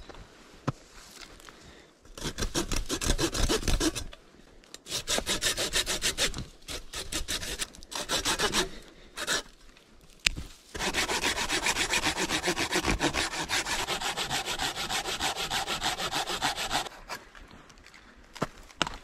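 Folding pruning saw cutting through small dead pine branches in bouts of quick back-and-forth rasping strokes, with short pauses between cuts and the longest run of strokes in the second half.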